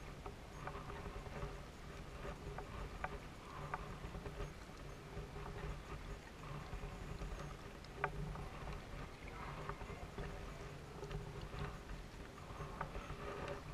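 Kayak paddling: paddle strokes swishing through the water in an uneven rhythm, with scattered light knocks and clicks, the sharpest about eight seconds in.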